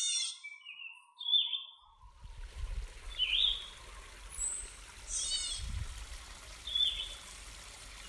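Birds calling: a quick high series of falling chirps right at the start and again about five seconds in, with shorter single calls between. From about two seconds in, a steady background hiss with a low rumble sits beneath the calls.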